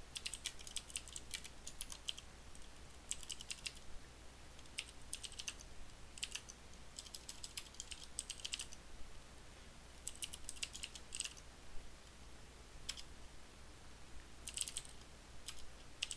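Typing on a computer keyboard in short bursts of keystrokes with pauses between.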